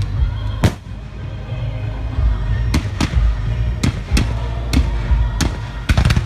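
Fireworks shells bursting in a series of sharp bangs, about nine in six seconds, several close together near the end, over loud music and a low rumble.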